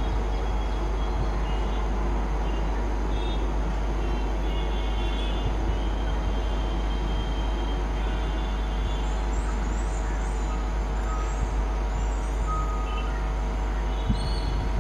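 Alco WDM-3D diesel-electric locomotive's engine running with a steady drone as it hauls a passenger train slowly towards the listener, smoking heavily.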